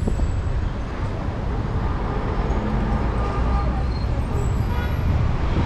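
Street traffic noise: a steady rumble of passing cars and buses, with voices of passers-by mixed in.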